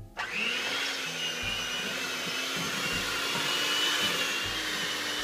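Electric hand mixer switched on, its motor whining up to speed almost at once and then running steadily as the beaters cream butter and sugar.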